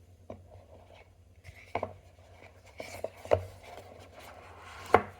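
Objects being handled on a desk: a few light knocks and clicks with rubbing between them, and a sharper knock near the end.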